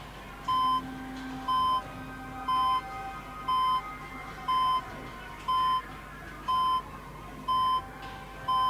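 Hospital patient monitor beeping steadily, a short, even beep a little under once a second, with faint music underneath.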